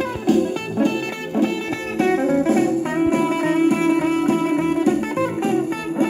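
Rockabilly record playing from a 10-inch shellac 78 rpm disc, in an instrumental break with no singing: a guitar plays over a steady rhythm.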